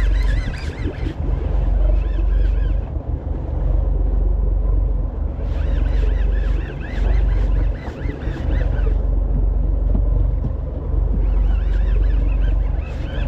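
Wind buffeting the microphone over the steady rumble of a fishing boat at sea, with the wash of water around it.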